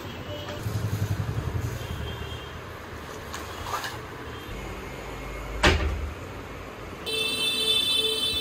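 Street traffic noise with a vehicle horn sounding steadily over the last second or so, and a single sharp knock about halfway through.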